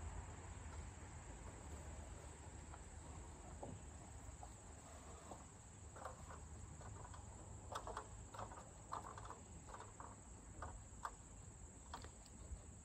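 Steady, faint, high-pitched insect chorus of crickets. Short, faint knocks and taps come in the second half as a wooden cross beam is handled and set on a post from a stepladder.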